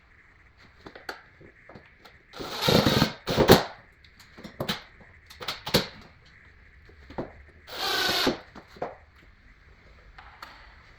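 Scattered clicks and knocks with three short noisy bursts, two close together a few seconds in and one about eight seconds in: a blind mounting bracket being fastened inside a window casing.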